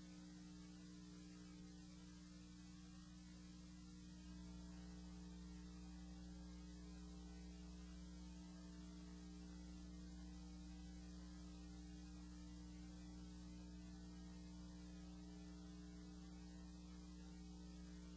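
Near silence: a faint, steady electrical mains hum with a light hiss.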